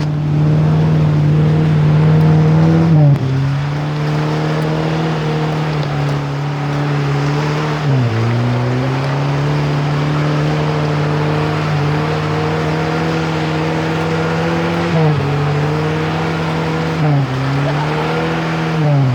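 A vehicle engine running under steady load, its note holding level and then dipping sharply and recovering several times, as with gear changes or easing off the throttle on rough ground.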